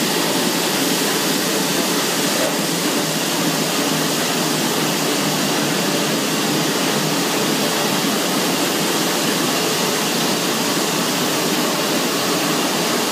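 Printing presses running on a print-shop floor, making a steady, loud mechanical noise with no distinct rhythm.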